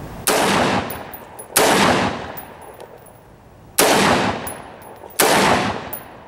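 AR-15 rifle fired four times in semi-automatic. The single shots are unevenly spaced, about one and a half to two seconds apart, and each crack trails off over about a second.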